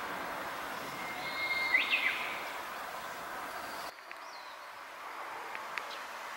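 Outdoor ambience with a short bird call about a second and a half to two seconds in, the loudest thing heard. The background then drops quieter just before halfway, with a few faint chirps near the end.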